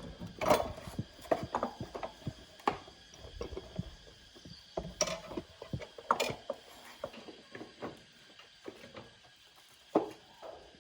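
Irregular clicks, clinks and knocks of hand tools and bike parts being handled and worked, with a few louder knocks spread through.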